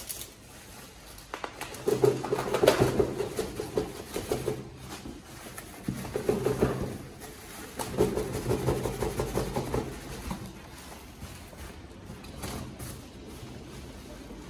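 Bubble wrap and plastic packaging rustling and crinkling as a parcel is unwrapped and turned over by hand. It comes in several bouts and is quieter in the last few seconds.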